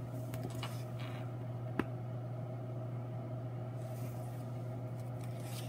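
Quiet room tone with a steady low electrical hum, and a single sharp click about two seconds in.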